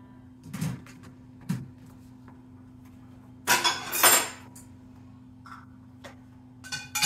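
Dishes and cutlery clinking and clattering as a dishwasher is unloaded: a couple of light knocks, then a loud burst of ringing clinks about three and a half seconds in and another near the end.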